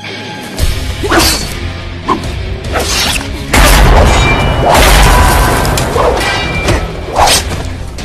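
Film action sound effects over music: a heavy rumble sets in about half a second in, with several sweeping whooshes and heavy impacts, loudest in the second half.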